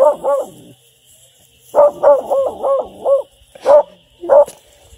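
Young hound puppy barking, each bark rising and falling in pitch: a pair at the start, a quick run of about five about two seconds in, then two single barks near the end.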